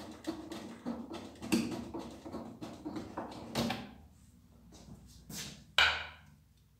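Hands unscrewing a hand-turned screw from a pressure washer's plastic cover: rustling and clicking, busiest in the first half, with a single sharp knock about six seconds in.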